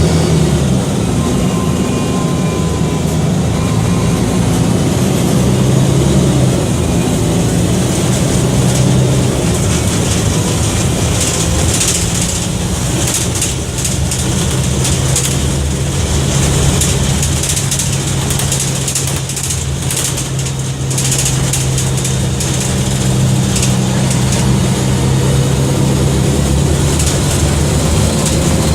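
Mercedes-Benz O-500MA articulated bus's OM 457 LA turbo-intercooled inline six-cylinder diesel running under way, its pitch shifting during the first few seconds and then holding a steady drone. Bouts of high-pitched hiss or rattle come and go through the middle.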